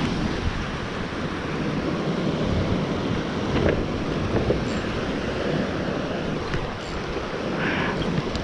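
Steady wind on the microphone over the sound of the sea, with a few faint clicks.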